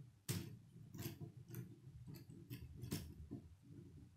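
Plastic K'nex rods and connectors clicking as they are snapped together and handled: a string of irregular sharp clicks over a low rubbing rumble, the loudest about a third of a second in and at about three seconds.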